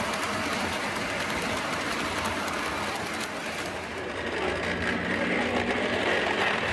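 O gauge model train running on the layout's track, a steady whir of its electric motor with the rattle of wheels on the rails. It dips a little about halfway through and grows louder near the end.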